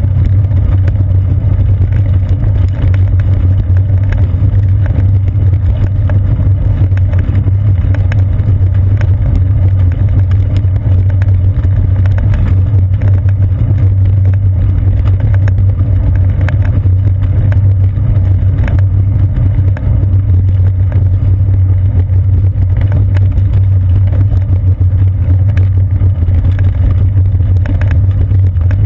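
Bicycle rolling over a brick-paved street, heard through a seat-post-mounted GoPro Hero 2: a loud, steady low rumble with a constant fine rattle from the bricks.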